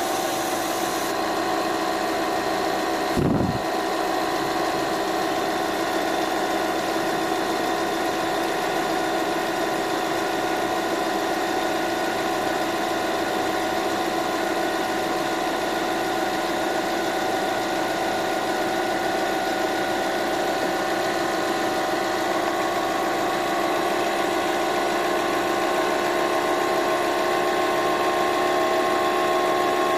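Fiat Grand Siena engine running at idle with a steady whine from the alternator bearing, which the owner takes for a worn, squealing bearing. A brief low thump sounds about three seconds in, and the whine rises slightly in pitch near the end.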